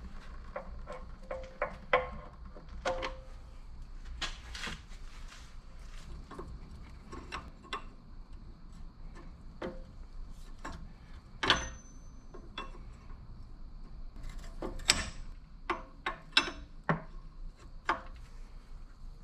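Scattered knocks and metallic clinks of tools and metal parts being handled and set down, about a dozen irregular strikes, one giving a short high ring near the middle.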